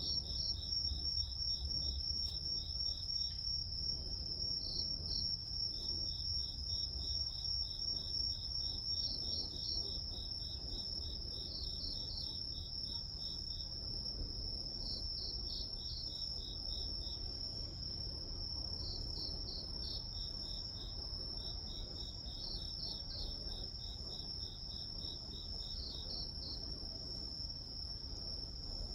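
Crickets and other grass insects chirping in chorus: one high, unbroken trill holds steady while trains of rapid pulsed chirps from other insects start and stop every few seconds, over a faint low rumble.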